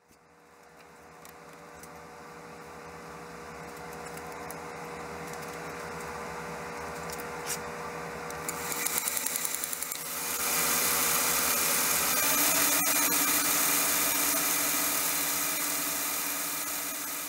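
Small metal lathe and a die grinder running. A steady motor hum is joined about eight and a half seconds in by a loud high hiss and whine, which grows louder from about ten seconds as the lathe spindle turns.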